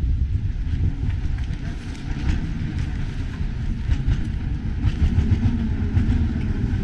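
Engine of a small wooden fishing boat running, a continuous low, uneven rumble, as the boat manoeuvres in to a concrete jetty.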